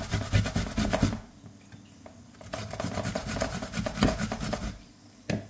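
White radish (mooli) grated by hand on a stainless steel box grater: quick rasping strokes, a pause about a second in, then more strokes, with a short knock near the end.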